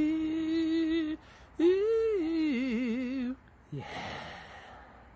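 A drawn-out wordless howling voice: one long steady note, then after a short pause a second note that rises, falls and wavers. A faint hiss follows near the end.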